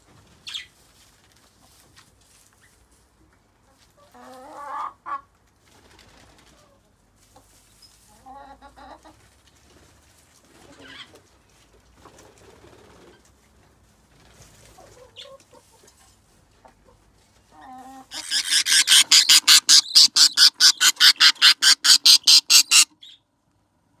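Chickens clucking now and then in the aviary. Then, as a budgerigar nest box holding a hen and her half-feathered chicks is looked into, a loud run of rapid raspy calls at about six a second goes on for about five seconds and stops abruptly, typical of budgie nestlings begging.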